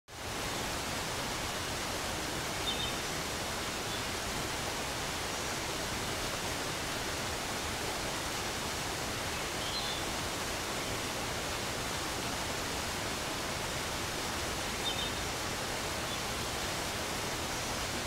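Steady rushing outdoor ambience, an even noise like wind or distant running water. Three short high chirps come through it, about 3, 10 and 15 seconds in.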